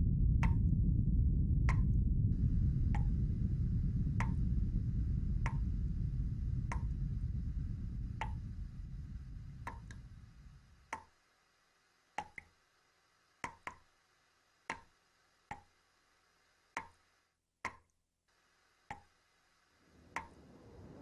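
Water dripping from a tap, single drops plinking about once a second with a short ringing plop. A low rumble fades out beneath them over the first ten seconds.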